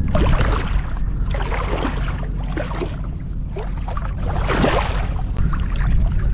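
Shallow seawater washing and splashing in surges every second or two, over a steady low rumble.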